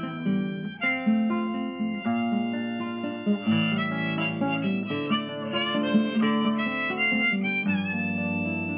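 Background music: a harmonica melody with bending notes over acoustic guitar.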